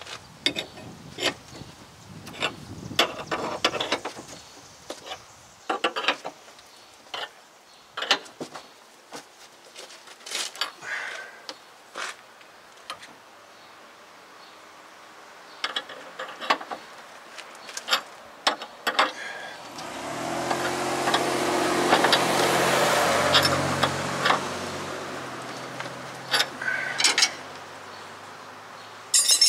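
Irregular metallic clicks and clinks of a long ratchet and wrenches working the screw of a ball joint press on a truck's upper control arm. About twenty seconds in, a passing vehicle's engine swells and fades over several seconds.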